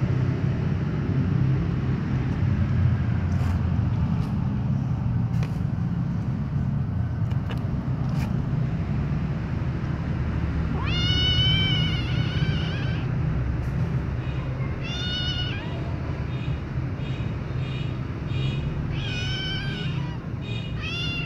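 A young long-haired white-and-grey kitten meowing loudly in the second half: one long call that rises and falls, then several shorter ones, over a steady low rumble.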